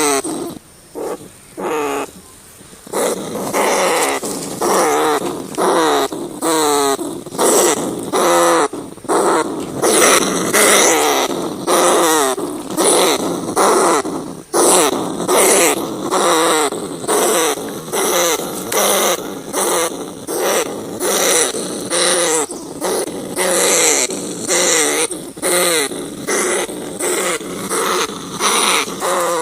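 Rats calling: a rapid, loud series of short squealing calls, each wavering or falling in pitch, about one to two a second, with a brief lull about one to three seconds in.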